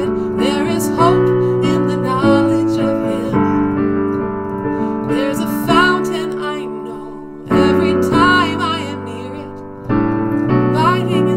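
Roland digital piano playing slow worship chords, each struck and left to ring and fade before the next, with a sharper fresh chord about seven and a half seconds in and again near the end.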